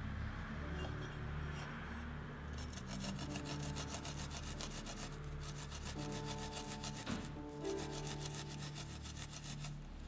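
A garlic clove rubbed back and forth on a flat stainless steel grater, making runs of quick rasping strokes that start about two and a half seconds in, with a short break halfway, over soft background music.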